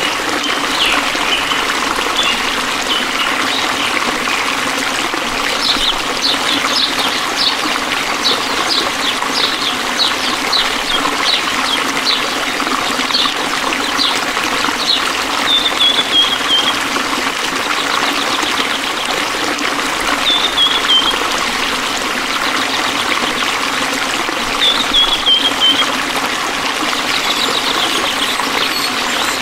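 A stream trickling and gushing steadily. Over it come short high chirps, about two a second, from around five seconds in to about fifteen, then three brief falling calls.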